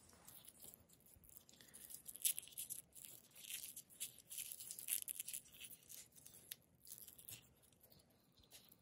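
Electrical tape being pulled off the roll and wrapped around small plastic split loom on a wire, giving faint, irregular crackling and tearing.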